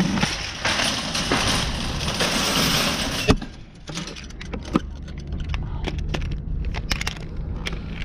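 Wire shopping cart rattling as it rolls over asphalt, ending in a sharp clank about three seconds in as it is pushed into a row of parked carts. Then light metallic clicks and jingles as the coin-lock chain is fitted into the cart's handle lock.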